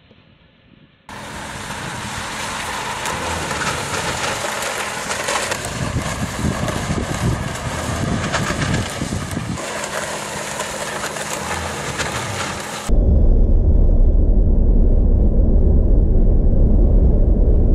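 Car on a test track: a steady mix of road and wind noise that starts suddenly about a second in. About three-quarters of the way through it gives way to a louder, deep rumble of wind buffeting the microphone.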